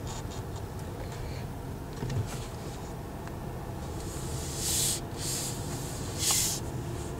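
Inside the cabin of a 2013 Ford Taurus SHO moving slowly: a quiet steady hum from its twin-turbocharged 3.5-litre EcoBoost V6 and the tyres. A few brief hissing rushes of noise come near the end.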